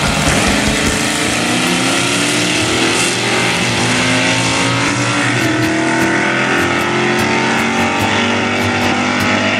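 Two drag-race cars launching off the starting line and accelerating hard down the strip, their engines rising in pitch through the gears, with a drop and a second rise about halfway.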